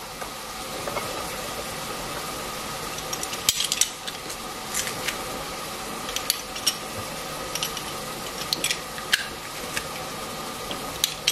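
Metal garlic press being squeezed on garlic cloves, giving a scattering of sharp metal clicks and clacks over a steady background hiss.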